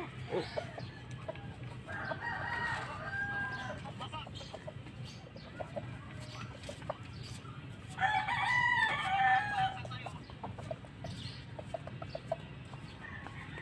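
Chickens clucking, with a rooster crowing twice: once about two seconds in and again, louder, about eight seconds in.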